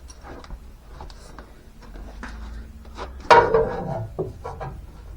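Side pipe exhaust being pushed down on its rubber-bushed mount: scattered knocks and rubbing of metal parts, with one louder clunk a little over three seconds in.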